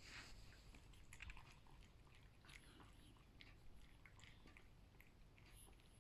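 A cat chewing its food: faint, irregular crunching and clicking bites.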